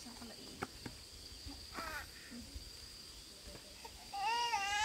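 A steady high-pitched insect drone with a few soft clicks; about four seconds in, a small child breaks into a loud, wavering wail.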